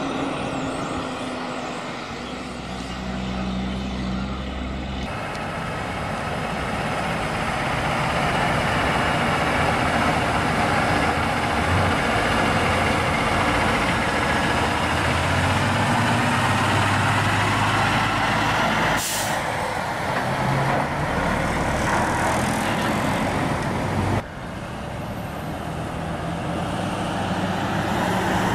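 Heavy diesel trucks running along the road, with engine drone and tyre and road noise. The sound changes abruptly a few times, and a brief sharp hiss comes about two-thirds of the way through.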